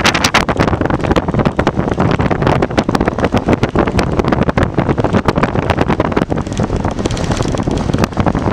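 Strong wind buffeting the microphone: a loud, continuous rumbling roar that flutters rapidly.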